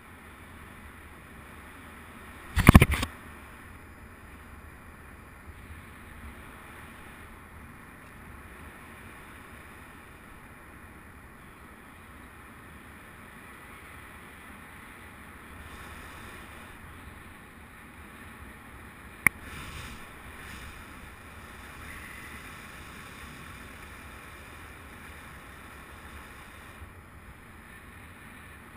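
Steady rush of airflow over the camera microphone during paraglider flight. A brief loud buffet about three seconds in, and a single sharp click about two-thirds of the way through.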